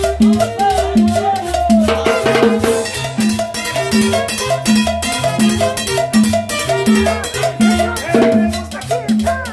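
A live tropical dance band with an upright double bass playing a repeating bass line over a steady percussion beat, with a fuller, louder passage about two seconds in.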